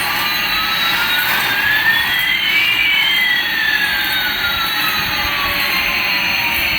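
Jet-like whooshing hiss with two tones gliding across it, one rising and one falling, crossing about halfway through.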